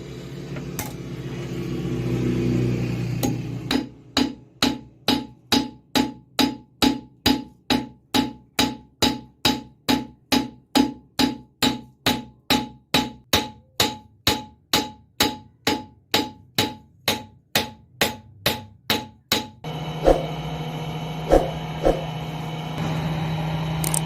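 A blacksmith's hammer striking hot metal on an anvil in a steady rhythm, about two ringing blows a second for some fifteen seconds. After the hammering stops, a steady low hum runs on, broken by a few single clanks.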